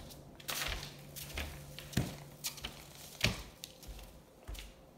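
Handling noise from a phone moved close over drop cloths and plastic sheeting: about six short, irregular knocks and rustles.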